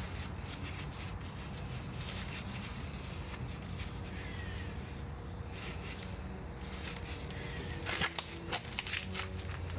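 Hands handling pepper seedlings, potting soil and plastic containers during transplanting: faint rustling, then a short cluster of clicks and rustles near the end, over a steady low hum.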